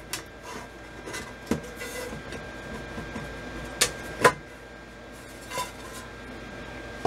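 The sheet-metal cover of a bench instrument being lifted off and handled, heard as a series of separate clanks and knocks, the loudest pair about four seconds in.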